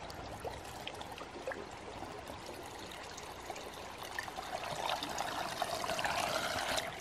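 Water poured from a plastic bottle into the open mouth of a hydration-pack bladder, a steady trickling pour. It grows louder over the last couple of seconds and cuts off just before the end.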